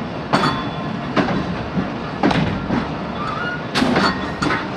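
Railway passenger coach rolling slowly along a platform: a steady running rumble with sharp, irregular clacks of its wheels over rail joints, about one or two a second, the loudest near the end.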